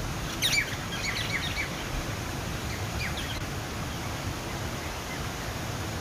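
Small waterfall splashing steadily into a pond, a constant rush of water. Over it, birds chirp: a quick flurry of short chirps about half a second in, the loudest sound here, and a few fainter ones around three seconds in.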